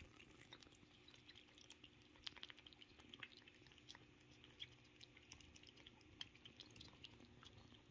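Near silence with faint, irregular wet clicks of cats chewing and licking tuna.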